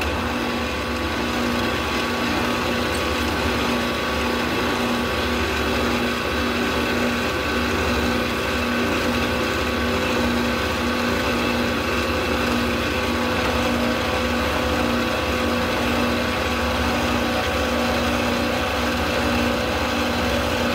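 Milling machine spindle running steadily at speed, a constant hum and whine with several steady tones, turning a ball-bearing edge finder. It starts abruptly.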